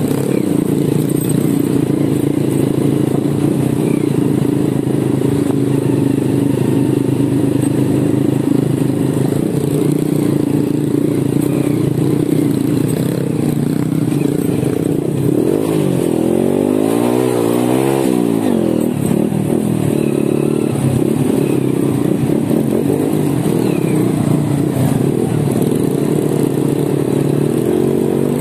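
Honda Win 100 motorcycle's single-cylinder four-stroke engine running steadily while riding, its pitch briefly rising and falling about halfway through.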